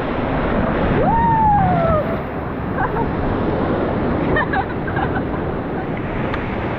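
Loud, steady rush of river water with wind buffeting the microphone. A single drawn-out human yell rises and then falls in pitch about a second in, and a few faint shouts come later.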